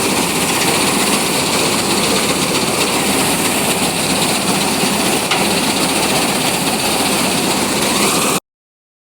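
Combine harvester running steadily at wheat harvest. The sound cuts off suddenly near the end.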